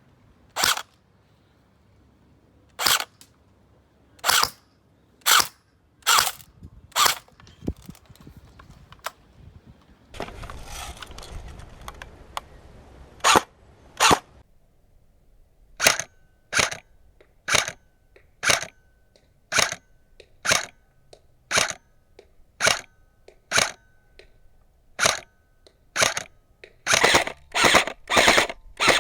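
Airsoft AK47 electric gun firing single shots, each a sharp crack, at uneven gaps, settling into about one shot a second later on and a quicker string of shots near the end. A few seconds of hiss come about ten seconds in.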